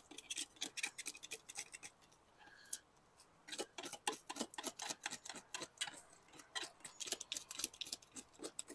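Knife blade scraping the scales off a whole black sea bass on a plastic cutting board: quick scratchy strokes, about four a second, with a short lull about two seconds in.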